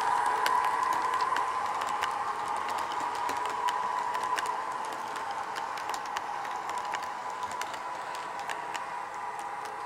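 HO-scale model train rolling past: irregular light clicks from the sleeping cars' wheels over the track joints, over a steady whine from the AF Models EA 060 'Delfin' electric locomotive that slowly fades as it draws away.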